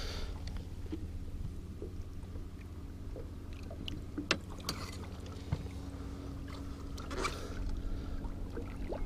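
Boat motor running steadily with a low hum, with a few small water splashes and sharp knocks as a musky is held in the water beside the hull and released.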